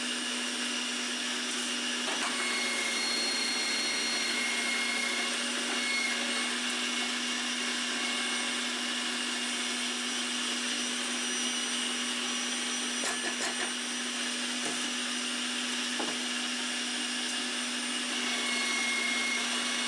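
Electric vegetable shredder with a drum grater running steadily as it grates courgettes pushed down its feed chute: a constant motor hum with grating noise, broken by a few light knocks as pieces are fed in.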